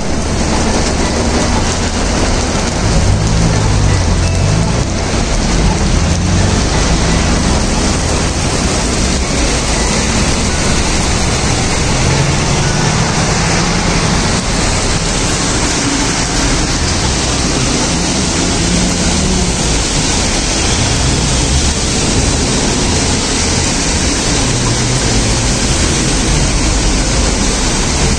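Heavy rain falling on pavement and a wet street, a steady hiss. Traffic drives through the wet road beneath it with a low rumble.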